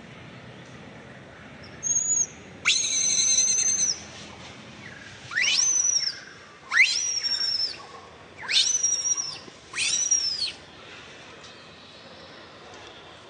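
Baby long-tailed macaque yelling: six high-pitched, whistle-like calls over about eight seconds, each sweeping sharply up and then holding a thin steady tone. The first call is short, and the second is the longest.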